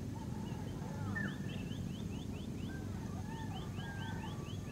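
Birds calling: two quick runs of short rising chirps, about six a second, with scattered whistled notes below them, over a steady low background rumble.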